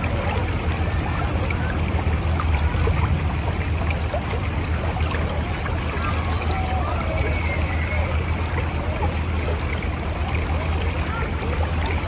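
Mountain river rushing steadily over rocks, with a constant deep rumble and small gurgles bubbling up through it.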